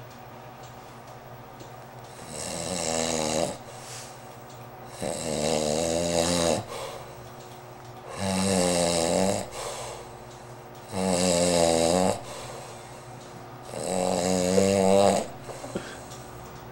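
A sleeping man snoring: five snores, one about every three seconds, each lasting a little over a second.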